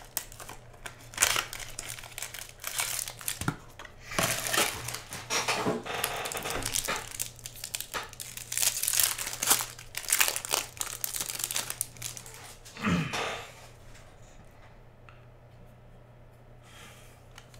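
Foil trading-card pack wrapper crinkling and tearing as it is opened by hand, in irregular bursts for about twelve seconds, then going quiet near the end.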